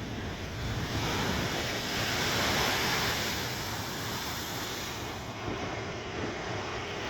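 Rough, storm-driven sea surf with wind rumbling on the microphone: a wash of breaking water swells about a second in and eases off after about four seconds.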